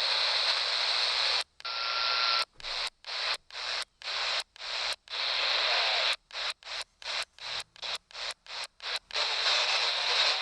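CB radio receiver hissing with static on a band full of skip. The hiss cuts off abruptly and comes back again and again, choppy and fast between about six and nine seconds in. A brief faint whistle sounds about two seconds in.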